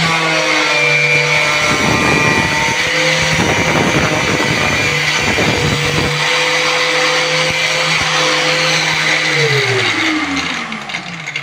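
Angle grinder with a metal cutting disc running at full speed with a steady whine, the disc grinding into a power bank for a few seconds in the middle. Near the end it is switched off and spins down, its pitch falling.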